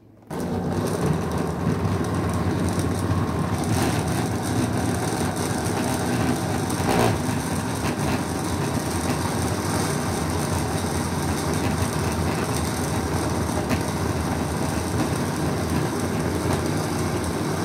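Electric countertop blender running steadily, blending a load of chopped vegetables in vinegar, then switched off near the end. It makes a 'funny noise' that the owner fears means it is failing.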